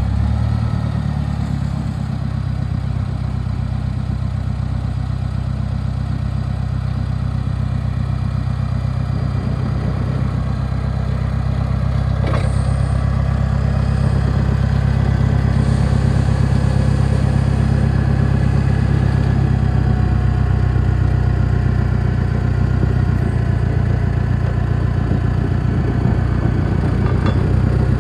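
LPG engine of a Clark C500-55 forklift running steadily at idle, with a single sharp clank about twelve seconds in.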